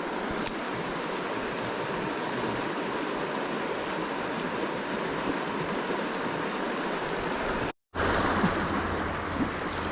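A small creek's flowing water rushing steadily with an even hiss. It cuts out for a moment near the end, then returns with a low rumble underneath.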